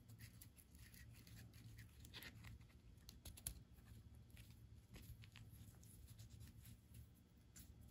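Near silence: faint scattered clicks and rubbing from hands fitting a rubber backup ring and O-ring onto the steel gland of a John Deere 158 loader's bucket cylinder, over a low steady hum.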